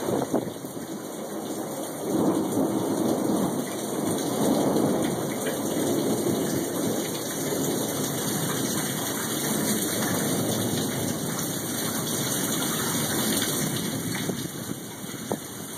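Thunder rumbling over steady rain. The rumble swells about two seconds in, is loudest around four to five seconds, then slowly eases.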